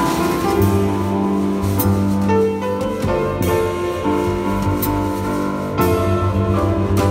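A jazz piano trio playing live: grand piano, upright bass and drum kit together, with a few sharp cymbal-like strikes over sustained notes.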